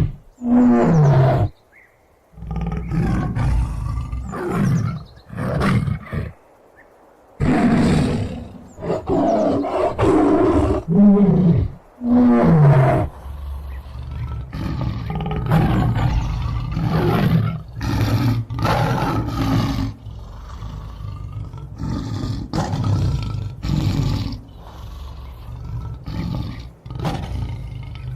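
Tiger roaring in a series of loud calls, several falling in pitch. There are brief pauses about two and about six seconds in, then a denser run of calls.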